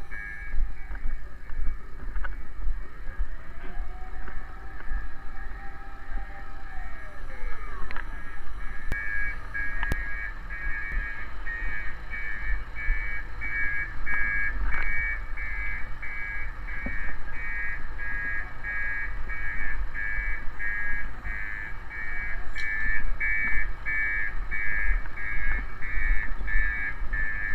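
Emergency-vehicle sirens: a fast, evenly pulsing two-pitch electronic siren that grows louder about a third of the way in, and early on a siren tone that rises, holds and slides back down, over a steady low rumble of vehicles.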